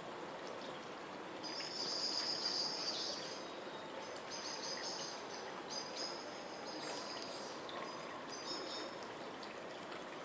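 Outdoor garden ambience: a steady rushing noise like running water, with bursts of high chirping through most of the stretch, loudest a couple of seconds in.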